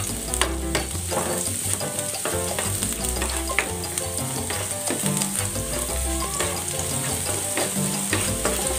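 Crushed garlic sizzling in hot oil in a nonstick frying pan, with a spatula scraping and stirring it around the pan. Background music with held bass notes and chords plays underneath.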